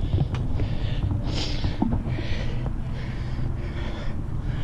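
A 5-inch FPV freestyle quadcopter (AstroX X5 frame, Ethix Silk V2 motors) flying close past the pilot, heard through wind and propeller wash on its onboard camera. A steady low rumble carries several breathy rushes of hiss that come and go.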